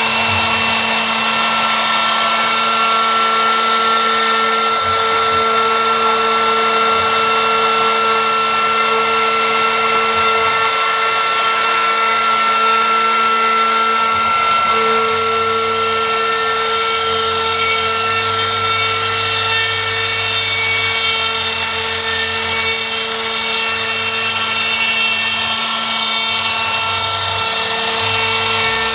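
CNC router spindle running at a steady high whine while milling HPL-laminated plywood, with the hiss of the cut over it.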